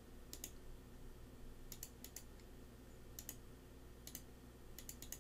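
A dozen or so faint, sharp clicks, some in quick pairs, as the sum 200 divided by 500 is entered into an online calculator on a computer, over a low steady hum.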